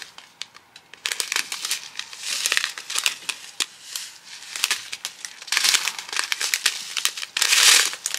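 Small plastic bags of round diamond painting drills crinkling as they are handled, with scattered clicks and a few louder rustles, the loudest near the end.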